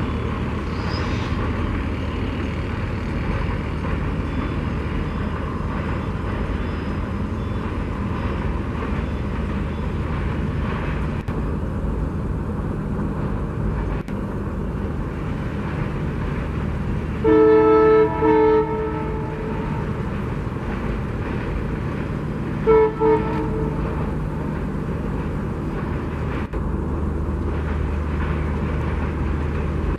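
Duronto Express coaches rolling slowly and steadily across a viaduct, hauled by a WDP4 diesel locomotive. The locomotive's horn sounds a long blast and a short one a little past halfway, then two short toots about five seconds later.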